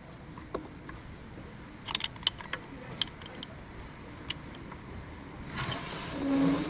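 A few sharp metallic clicks and clinks, bunched about two to three seconds in, from hand tools and brake parts being handled. Near the end comes a short, louder rushing noise with a low hum.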